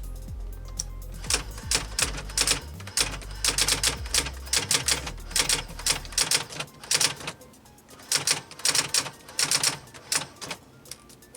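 Brother SX-4000 electronic typewriter printing: its daisy wheel strikes characters in quick runs of sharp clicks, separated by short pauses.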